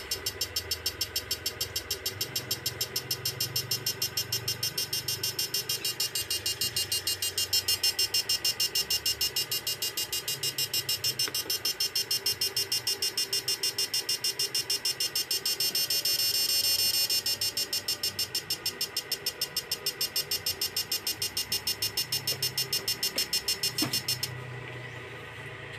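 Electronic fish-shocker inverter (20 power FETs, E55 transformer) running under load, giving a high buzzing whine in rapid regular pulses, about four a second. It cuts off abruptly near the end, when the trigger is released.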